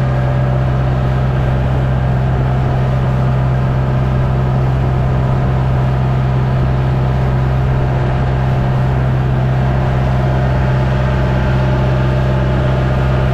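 Motorized bangka's engine running at a steady speed, a loud, even drone heard close up from aboard the boat.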